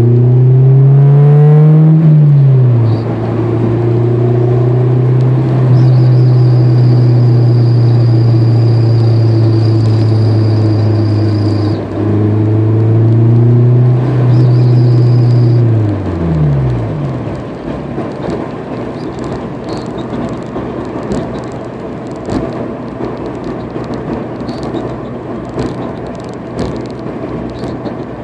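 2003 Honda S2000's four-cylinder engine running under way: the revs rise and drop back at first, hold steady for several seconds, climb again and then fall away about fifteen seconds in as the throttle is lifted. A thin high whine comes and goes over the engine in the middle, and after the revs fall the engine sinks under a rough rumble with scattered light clicks.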